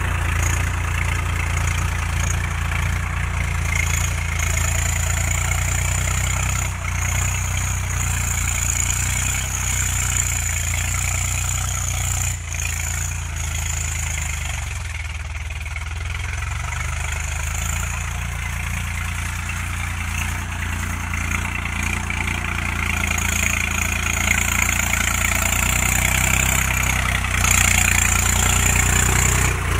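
Swaraj 744 FE tractor's three-cylinder diesel engine running steadily under load as it pulls a harrow through ploughed soil. It grows somewhat fainter midway and louder again near the end as the tractor draws closer.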